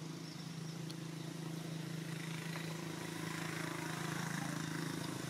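A small engine running steadily off-screen: a low, even hum that grows a little louder through the second half.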